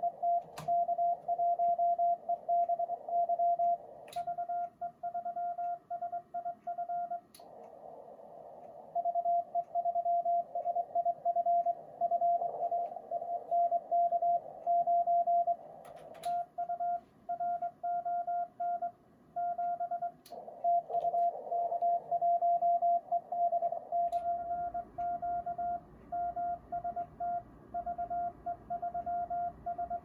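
Morse code from a Yaesu FTDX-10 HF transceiver: a steady mid-pitched CW tone keyed in dots and dashes at medium speed, with a fainter, higher-pitched second signal keyed in stretches, over receiver hiss. A few sharp clicks break in at scattered moments.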